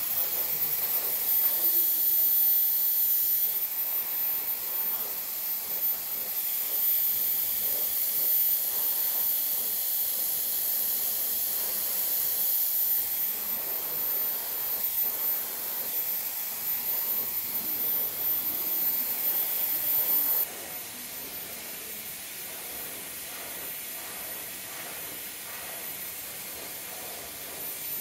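Handheld hair dryer running, a steady rush of blown air. About two-thirds of the way through the level drops suddenly and the dryer keeps running more quietly.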